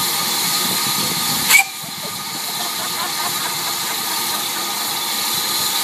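Steam locomotive hissing steadily as it lets off steam, with a sharp knock about a second and a half in, after which the hiss drops a little.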